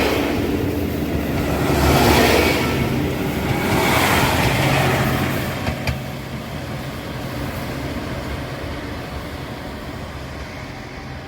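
KiHa 183 diesel railcar running: a steady low diesel engine hum with three swells of rushing rail and wheel noise about two seconds apart, then fading away gradually over the second half.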